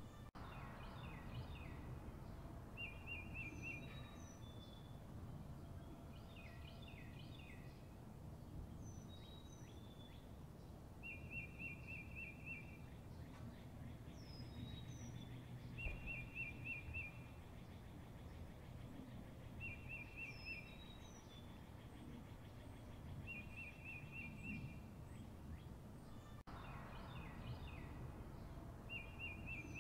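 Birdsong over a low steady background rumble: a trilled call about a second long repeats every few seconds, with short down-slurred whistles and chirps in between.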